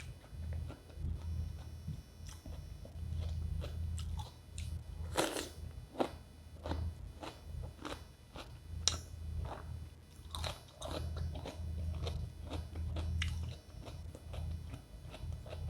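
Close-up crunching and chewing of raw cucumber: a string of crisp bites and chews, the loudest a few seconds in and again around the middle, over a steady low hum.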